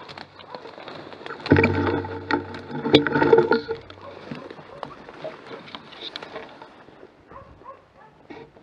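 Tall reeds and undergrowth rustling and crackling as someone pushes through them on foot. About a second and a half in, a louder low droning sound with a steady pitch lasts about two seconds and then stops. The rustling goes on more quietly after it.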